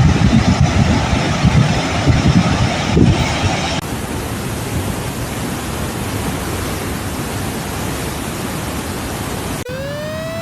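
Steady rushing noise with heavy wind buffeting on the microphone for the first few seconds, then an even hiss. Near the end a siren starts, rising in pitch.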